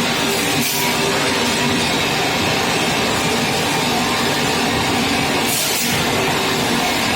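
Centrifugal casting machine running with a steady, loud mechanical drone made of several held tones over a noisy rush, broken twice by a brief hiss, about half a second in and again near the end.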